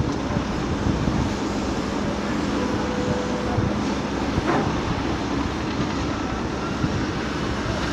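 Heavy diesel earthmoving machinery running steadily with a constant low engine hum. There is one brief knock about four and a half seconds in.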